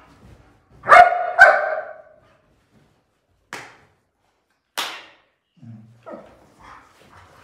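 German shepherd barking twice in quick succession, about a second in. Two short, sharp noises follow a few seconds later.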